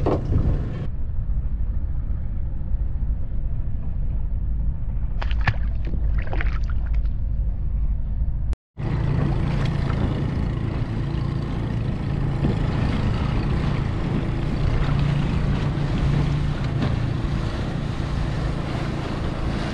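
Steady low rumble of wind on the microphone aboard a small fishing boat at sea, with a few knocks around five to seven seconds in. A short dropout comes a little past eight seconds, after which the rumble is fuller and louder in the low end.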